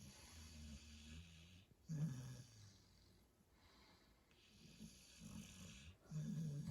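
Snoring from a sleeper, either the dog or the man: two slow breaths about four seconds apart, each a long hissing breath followed by a louder, low-pitched snore.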